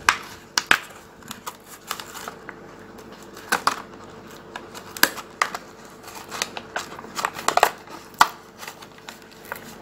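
Clear plastic blister pack of a Hot Wheels die-cast car being pried and peeled off its cardboard backing card: irregular crinkles and sharp plastic clicks, with several louder snaps spread through.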